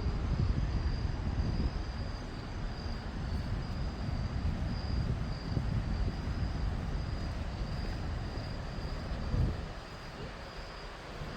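Insects calling in a steady high trill that pulses about twice a second, over a low rumbling noise that eases off about ten seconds in.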